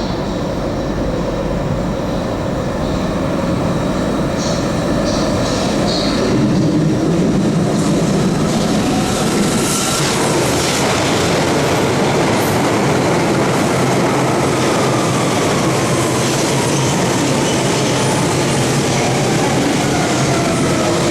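London Underground 1992 Tube Stock train running into the platform and slowing. It grows louder, then a whine falls steadily in pitch as the train brakes. The wheels rumble and give short high squeals early on.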